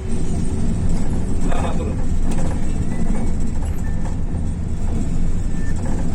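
Volvo bus running in traffic: a steady low engine and road rumble, with a couple of short knocks or rattles.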